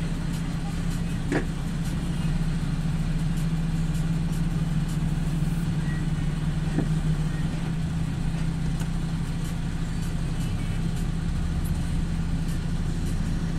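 Truck's diesel engine running steadily at low speed, heard as a constant low hum from inside the cab, with a couple of faint clicks.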